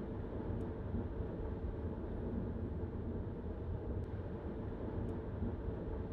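Steady road and engine rumble of a car being driven, heard from inside the cabin.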